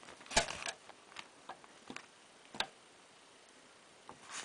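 Front-panel control buttons of a BBK LT1914S TV clicking as they are pressed: a quick cluster of clicks about half a second in, the loudest, then single clicks spaced out, and a few more near the end.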